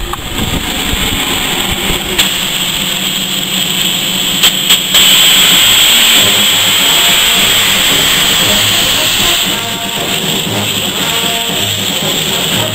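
Steam locomotive hissing steam as it and its carriages pass close by. The hiss is loudest for about four seconds in the middle, just after two sharp clicks, and eases off near the end.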